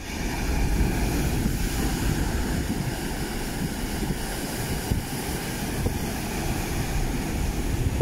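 Sea surf washing over a rocky shore: a steady rush of breaking and draining water with a deep rumble underneath, swelling a little about a second in.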